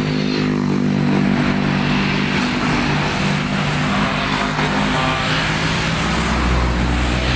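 Passing road traffic: a steady engine drone for the first five seconds or so, then a deeper low rumble near the end.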